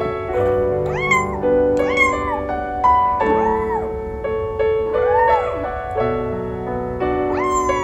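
A chinchilla golden Persian kitten meowing about five times, each a short rising-and-falling mew, over background piano music.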